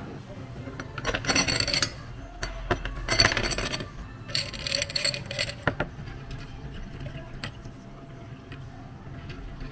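Glassware and ice clinking and clattering while a drink is made, in three short bouts about one, three and four and a half seconds in, with scattered small clicks between.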